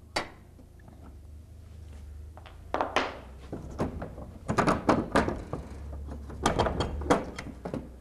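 A single sharp click, then a run of metal knocks and clunks as an unbolted garage door hinge and its roller are worked loose and pulled free of the door.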